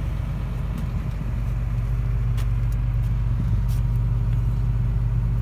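Kobelco SK210 excavator's diesel engine idling, a steady low hum that grows slightly louder about a second in.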